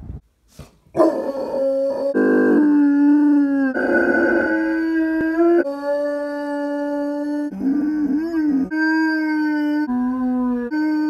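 A dog howling: a run of long, held notes one after another, starting about a second in, with one wavering, bending note about eight seconds in.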